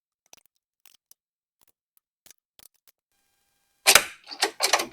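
A few faint scattered ticks, then about a second before the end a quick run of loud metallic clicks: a ratchet wrench tightening the nut on a car battery's hold-down clamp.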